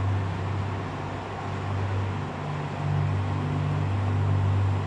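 Steady low droning hum of deep tones, with a second, slightly higher tone coming in a little over two seconds in, over a faint hiss.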